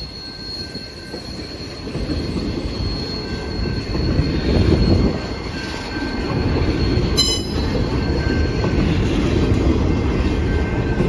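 Double-stack intermodal well cars of a freight train rolling past: a steady rumble of steel wheels on rail that grows louder about two seconds in, with a thin high squeal of wheels running above it. A brief sharp metallic screech comes about seven seconds in.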